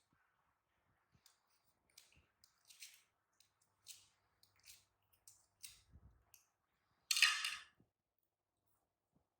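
A series of soft, short scratchy rustles and clicks, then a louder rustle lasting about half a second, around seven seconds in.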